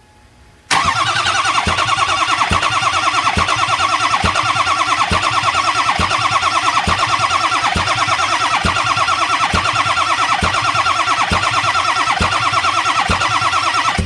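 Ford 6.0 L Power Stroke V8 diesel being cranked by its starter without firing, starting about a second in and going steadily with a fast even pulse. The engine is being spun over to prime a new oil pump and build base engine oil pressure.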